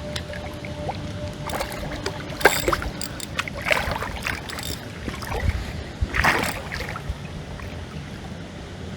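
Several short splashes of water over a steady low rumble, with a sharp click about two and a half seconds in.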